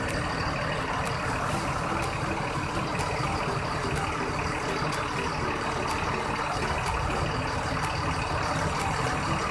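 Coach bus diesel engine idling with a steady rumble, with faint ticks about once a second.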